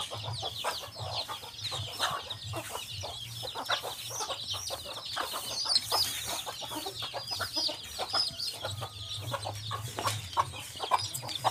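A flock of chickens: hens clucking and many chicks peeping in quick, high cheeps without a break.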